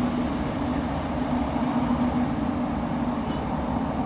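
Interior running noise of a Class 156 diesel multiple unit moving at speed: a steady drone with a low hum from its underfloor Cummins diesel engine over the rumble of the wheels on the rails.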